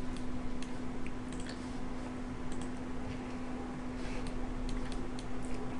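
Scattered faint clicks of a computer mouse and keyboard over a steady low hum and hiss.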